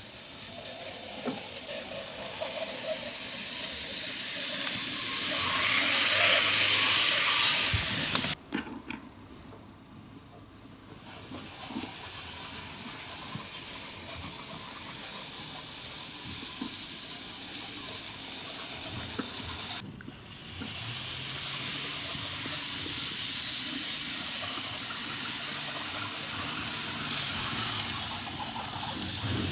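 N-gauge model 103-series electric train running on the track: a steady whir from its motor and wheels on the rails, swelling as it passes close. The sound shifts suddenly about eight and twenty seconds in.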